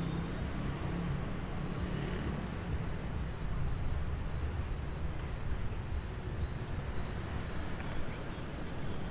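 City street traffic passing steadily: a constant hum of vehicle engines and road noise, a little louder in the first few seconds.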